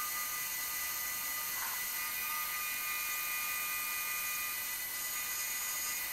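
Milling machine spindle running an end mill through a finishing cut on a metal bar held in the vise: a steady high-pitched whine made of several fixed tones.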